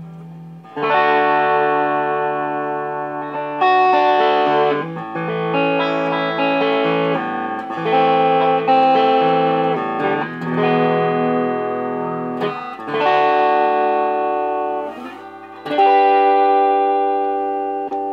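Donner DTC-100W Telecaster-style electric guitar played through its humbucker in full (unsplit) mode: a slow run of strummed chords, each struck and left to ring and fade before the next.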